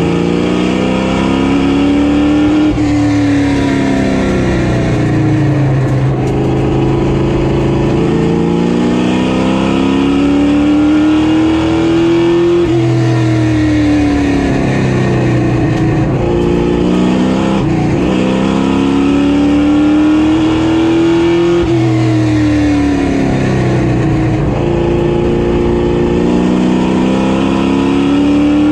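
Street stock race car's GM 602 crate V8 running hard on a short oval. The engine pitch climbs for several seconds down each straight, then falls off into the turns, repeating about every 9 seconds.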